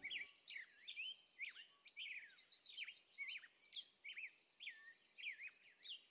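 Songbirds singing: a quick run of chirps and swooping whistled notes, with a high, thin trill behind them.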